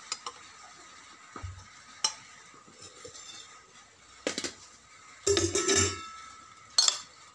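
Metal spoon clinking and scraping against a stainless steel plate and pot as cooked rice is served: scattered light clinks, a longer rattling scrape about five seconds in, and a sharp clink near the end.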